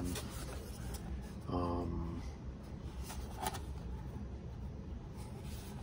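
Faint taps and rustles of a cardboard product box being turned over in the hands, in a quiet small room, with a brief drawn-out 'uhh' from a man's voice about one and a half seconds in.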